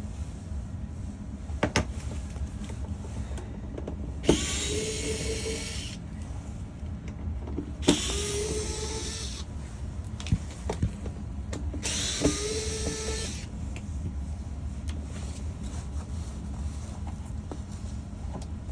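Small handheld electric motor, typical of a cordless screwdriver, whirring in three short runs of about a second and a half each, spaced about four seconds apart.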